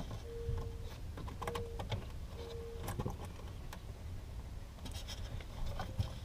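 Small scattered clicks and rattles of pliers and plastic-insulated crimp terminals being worked onto wires in a crowded wiring panel.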